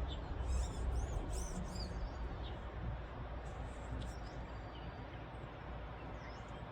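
Birds chirping in short high calls, a cluster in the first two seconds and a few more near the end, over the steady rush of a swollen, fast-flowing stream.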